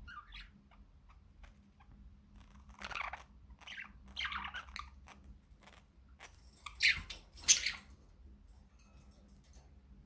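Budgerigars chirping and calling in short, separate notes, the two loudest calls about seven seconds in, then only faint chatter.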